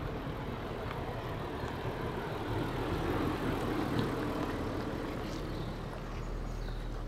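Land Rover Defender crawling slowly off-road, its engine running steadily at low revs under a rumbling noise that swells briefly around the middle.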